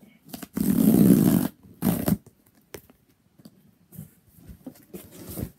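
Cardboard shipping box being torn open: a loud rip lasting about a second, a shorter rip near two seconds in, then light rustling and clicks of the cardboard flaps being handled.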